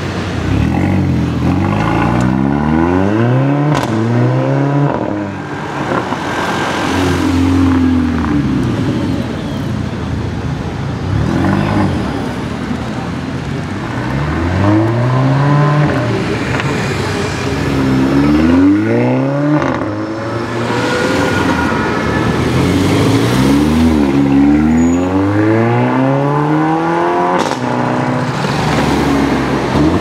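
Mercedes-AMG A45's turbocharged 2.0-litre four-cylinder engine accelerating hard through the gears, run after run. In each run the pitch climbs, then drops at each upshift, and climbs again.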